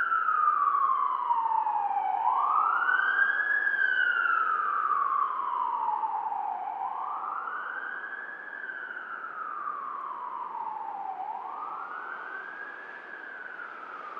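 Emergency vehicle siren in a slow wail, each cycle a quick rise in pitch followed by a long falling sweep, about three cycles, growing fainter toward the end.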